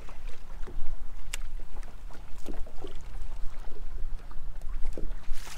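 Small waves lapping and slapping against a bass boat's hull, with wind rumbling on the microphone. There is a sharp click about a second in, and a brief rush of noise near the end.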